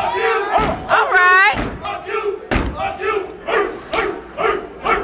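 Step team stamping boots on a wooden stage in a steady rhythm, about two stomps a second, while the crowd shouts and yells, with one loud high yell a little over a second in.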